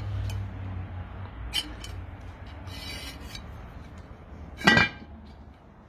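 A thin wire hook rubbing and scraping against the lid of a cast iron pot, over a faint low hum, with one short louder sound about three-quarters through.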